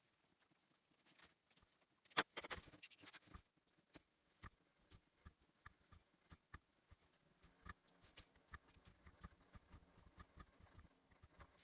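Faint clicks and rustles of gasket paper being cut out by hand: a quick cluster of sharp clicks about two seconds in, then scattered small clicks every half second or so.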